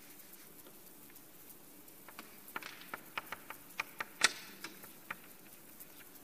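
Chalk writing on a blackboard: a quick, irregular run of sharp clicks and taps, starting about two seconds in, with the loudest tap a little after four seconds, over faint room tone.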